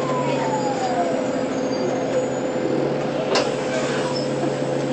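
Orion city bus drivetrain whining: a whine falls in pitch as the bus slows and fades out after about a second and a half, over a steady tone and a low hum. A single sharp knock comes about three and a half seconds in.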